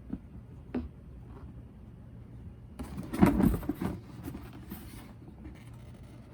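Cardboard box being handled and turned: a single click, then about a second of rustling and knocking cardboard that trails off, over a faint steady room hum.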